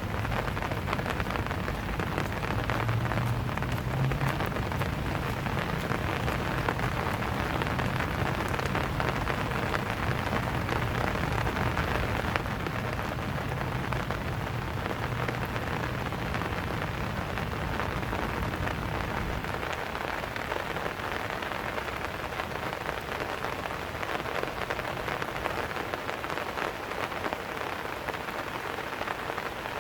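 Steady rain falling on surfaces, a dense patter of many drops. A low rumble runs underneath for about the first two-thirds and then drops away.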